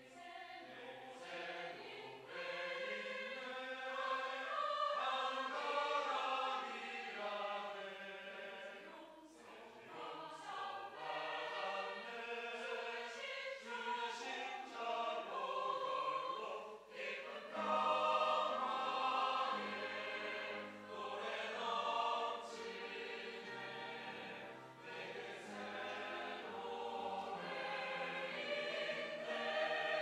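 Mixed church choir of men and women singing a hymn anthem in parts, growing louder and fuller with lower notes joining about 18 seconds in.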